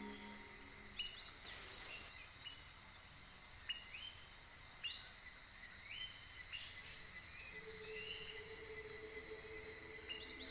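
Forest ambience: a steady high insect hum with scattered short chirps. About one and a half seconds in comes one loud, very high, rapid run of bird notes.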